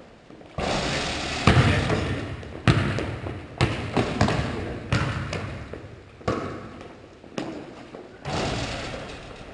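A basketball thudding against the hoop and bouncing on a hardwood gym floor. There are several sharp impacts roughly a second apart, each echoing through the hall.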